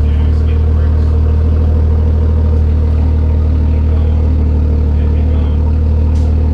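Ford FG XR6 Turbo's turbocharged inline-six idling steadily through a freshly fitted Varex valved muffler.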